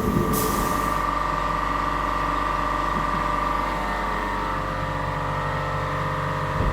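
Air compressor motor running steadily with an even whine over a low hum, after a brief hiss of the spray gun at the start.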